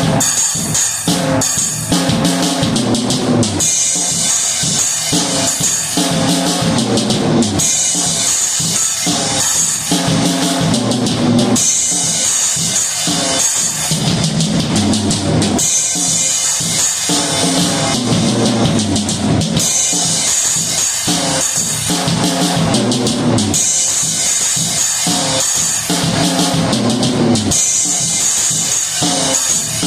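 Drum kit playing a steady repeating beat of bass drum and snare, with a bright cymbal wash coming in for a couple of seconds about every four seconds.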